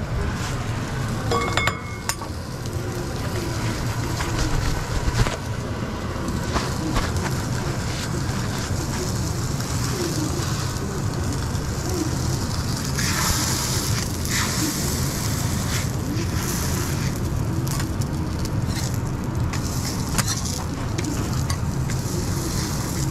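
Beef burger patties sizzling on a flat-top griddle over a steady low hum, with scattered clicks and scrapes of a metal spatula on the steel plate. A louder hiss rises for a couple of seconds midway.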